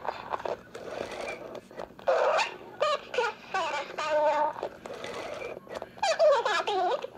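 Mattel T-Bone pull-string talking dog's voice unit playing recorded phrases in a wavering, high toy voice, several short utterances with brief pauses between them.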